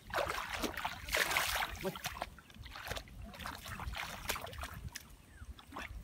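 Shallow water splashing and sloshing in irregular bursts as hands and feet move through flooded grass, loudest in the first two seconds.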